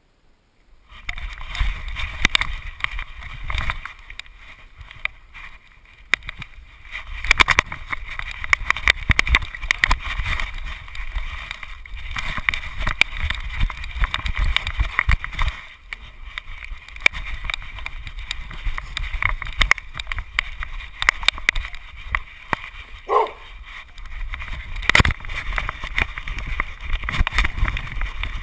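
Rubbing and rattling noise from a GoPro worn on a playing dog, starting suddenly about a second in, with many sharp clicks and knocks as the dog moves. A short rising squeak comes near the middle, and one louder knock a little after it.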